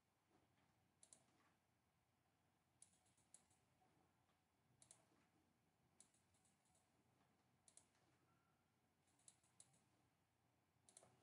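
Faint computer mouse clicks, about one a second and some in quick pairs or triples, over near-silent room tone, as the arrows of a spinner box are clicked.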